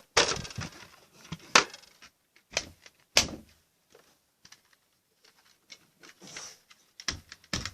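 Plastic Nerf Retaliator blaster being handled, with its parts clicking and knocking as a stock is fitted. About five sharp clicks come in the first three and a half seconds, then fainter taps and rustling.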